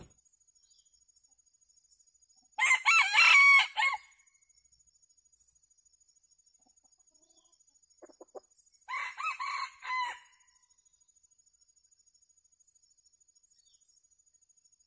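Junglefowl rooster crowing twice: a loud, short crow about three seconds in and a fainter crow around the ten-second mark.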